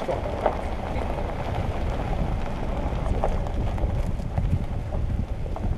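A car rolling slowly along a gravel track: a steady low engine and tyre rumble, with scattered crunches and pops of gravel under the tyres.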